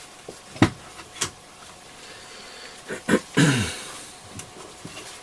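Handling noise of small parts on a workbench: a few sharp light clicks and taps, with a louder brief rustle about three and a half seconds in.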